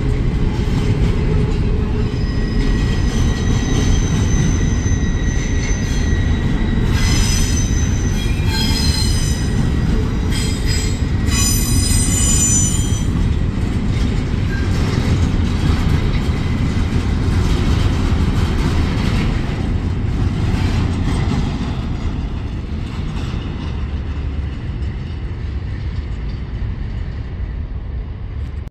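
Double-stack intermodal freight cars rolling past on steel wheels: a steady heavy rumble, with high wheel squeal from about three to thirteen seconds in. The rumble fades over the last several seconds as the end of the train goes by.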